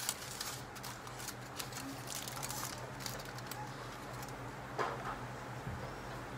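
Aluminium foil crinkling and crackling in quick clicks as a foil-wrapped hamburger is handled and lifted out, thickest in the first three seconds with a louder crackle a little before five seconds in. A steady low hum sits underneath.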